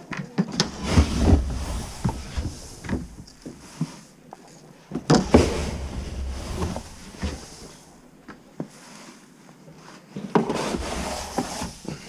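Three spells of clattering and knocking, hard objects being handled and banged together, about a second in, about five seconds in and near the end, with quieter stretches between.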